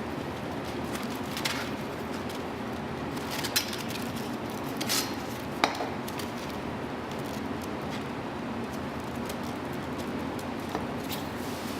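Sandpaper loadings being slid and fitted into a metal sanding-head casting: scattered light clicks and taps, the sharpest about five and a half seconds in, over a steady background hiss.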